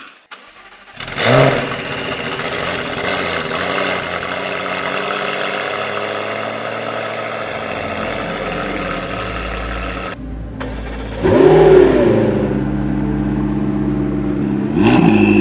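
McLaren 650S twin-turbo V8 on a Fi Exhaust valvetronic catback with catless downpipes starting up. It fires with a flare about a second in and settles into a steady idle. After a short break about ten seconds in, it idles again with a quick rev blip, and gives another blip near the end.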